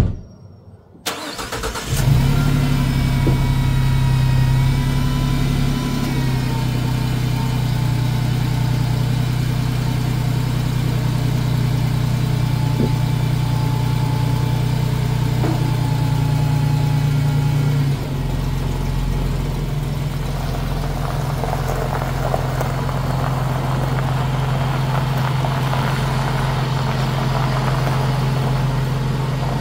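A 2017 Ford Transit 350 van's engine cranks and starts about a second in, then idles steadily. The idle steps down in pitch twice as it settles, and the van then pulls slowly forward near the end.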